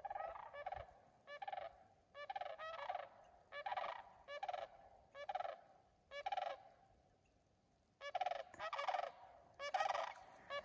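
Sandhill cranes calling in a chorus: rattling calls repeated one after another about every second, echoing, with a short lull about seven seconds in before they start again.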